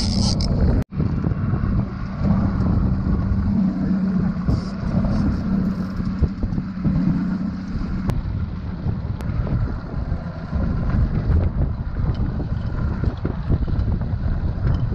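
Boat's outboard motor running steadily at trolling speed, with wind buffeting the microphone; the sound cuts out for an instant about a second in.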